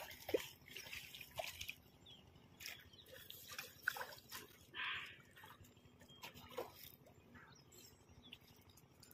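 Faint water splashing and dripping of a hooked fish thrashing at the surface among weeds, with scattered light clicks and a stronger splash about five seconds in.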